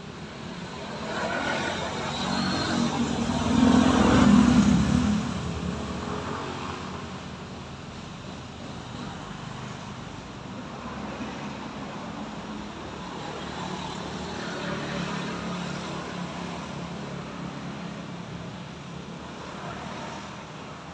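A motor vehicle passes close by, swelling to its loudest about four seconds in and then fading away; a second, fainter vehicle passes around fifteen seconds, over a steady hum of city traffic.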